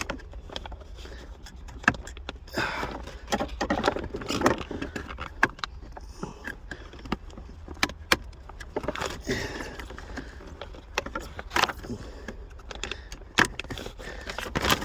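Irregular clicks, taps and short scrapes of pick tools and plastic trim pieces being handled and pried apart at a car's gear shifter console, over a steady low hum.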